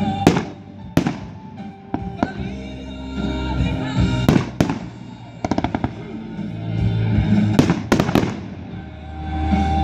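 Aerial fireworks bursting in the sky: sharp bangs every second or so, a quick run of crackles around the middle, and three bangs close together near the end, with music playing underneath.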